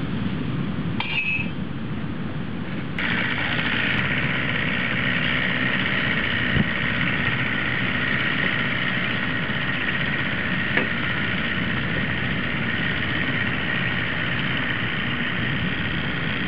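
Small outboard motor on an aluminium fishing skiff: it comes in suddenly about three seconds in and then runs steadily as the boat motors off.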